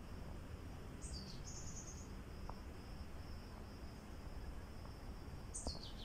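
Steady high-pitched insect trill in woodland, with a bird giving two high calls that fall in pitch, one about a second in ending in a held high note, the other near the end.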